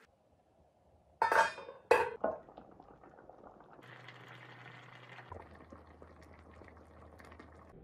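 Braising liquid simmering and bubbling in a pot around a whole duck, with faint crackles. Two loud sudden sounds come a little over a second in, about half a second apart.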